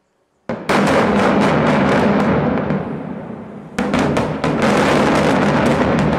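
Explosive charges of a building implosion going off: a sudden run of sharp, rapid blasts over a heavy rumble about half a second in, fading after about two seconds, then a second run of blasts just before four seconds in as the high-rise apartment tower comes down.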